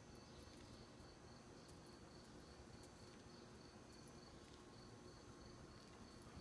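Near silence, with a faint high chirping repeated evenly several times a second, typical of a cricket.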